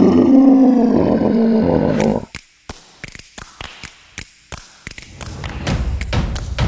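A Tyrannosaurus rex roar sound effect, one loud held cry with a wavering pitch that cuts off about two seconds in. It is followed by a run of sharp taps and thuds, then a low rumble that grows louder toward the end.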